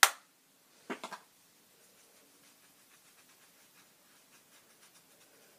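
A sharp click, then a short cluster of knocks about a second in. After that come faint, soft scratching ticks as a makeup brush works highlighter into the skin near the hairline.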